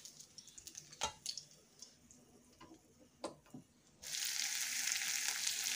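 A few light clicks and taps of a steel spatula against the pan and plate over a quiet stretch. About four seconds in, sliced onions and green chillies begin sizzling steadily in hot oil in an iron kadhai as they are stirred with the spatula.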